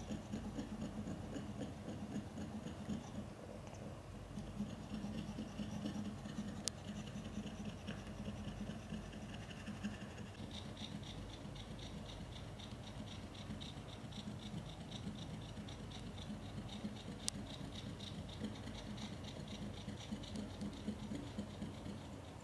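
Mother cat panting rapidly through her open mouth in an even, fast rhythm, as cats do while in labour.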